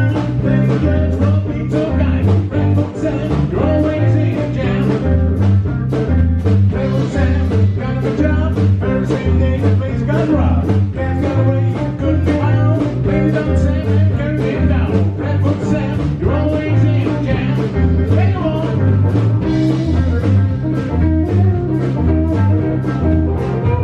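Blues band playing live: guitar over a steady, repeating bass line and a regular drum beat.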